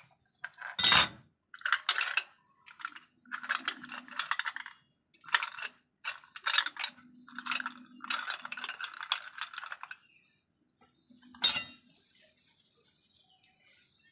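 Kitchen knife and abalone shells handled on a cutting board and plate: a sharp knock about a second in, then a run of short scraping and clinking sounds, and another sharp knock near the end.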